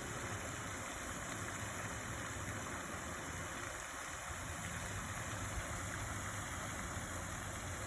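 Steady rushing and splashing of water from a pond fountain.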